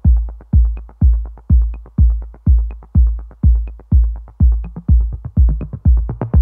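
Electronic dance music with only its beat playing: a heavy bass kick drum about twice a second, with light ticks in between and no melody.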